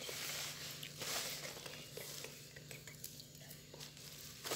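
Hands tossing and picking through fresh herbs, banana blossom and shredded chicken on banana leaves: soft rustling and crackling of leaves, busiest in the first second, with a sharper crackle near the end.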